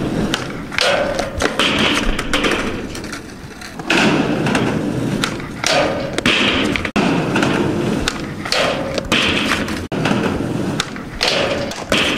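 Skateboard wheels rolling on concrete, broken by several hard thuds and slaps as the board is popped, hits the ground and clatters away on bailed kickflip backside tailslide attempts on a metal handrail.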